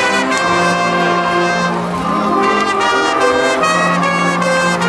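High school marching band playing, its brass section holding full chords over a low sustained note and moving to new chords every second or two, with a few sharp percussion hits.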